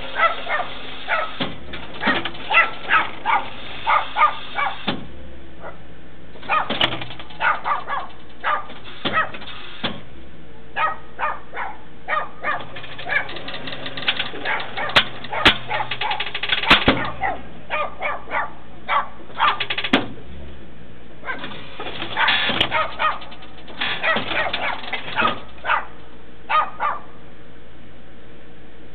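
A dog barking repeatedly in irregular clusters of short barks, over a steady low hum.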